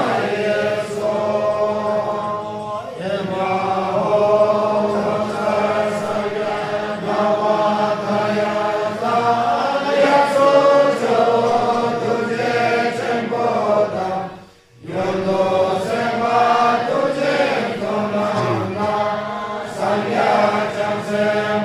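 A large group of voices chanting a Buddhist prayer together in unison, with a steady, droning melody. It breaks off briefly about two-thirds of the way through, then resumes.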